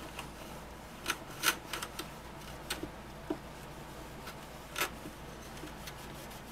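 A handful of light, irregular clicks and scuffs from an ultra-fine scuff pad being worked with the fingertips into the corners of a motorcycle part.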